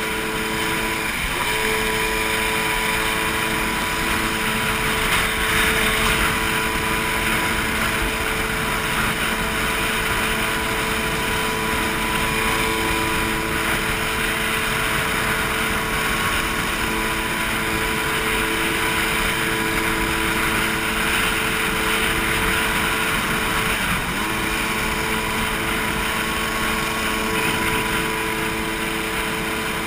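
Personal watercraft (jet ski) engine running steadily at speed, with the hiss of water spray and wind over it. The engine note breaks off for a moment twice, about a second in and again about six seconds before the end.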